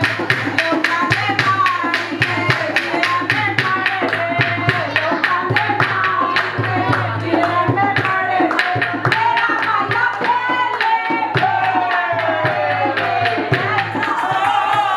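Indian song with a fast drum beat, about four strokes a second, under a gliding melody line.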